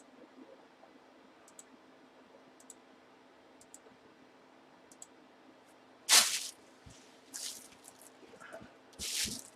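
Quiet room with a few faint clicks, then three short brushing or scuffing noises about six, seven and a half and nine seconds in: handling noise as something is moved about near the microphone.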